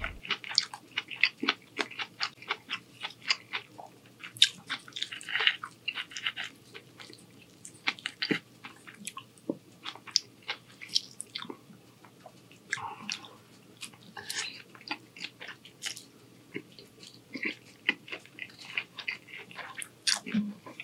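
Close-miked mouth sounds of a person chewing and eating shrimp angel-hair pasta: many short, irregular clicks.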